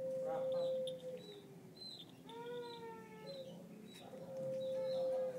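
Cat mewing in three drawn-out cries: a long steady one at the start, a shorter rising-and-falling one in the middle, and another long steady one near the end.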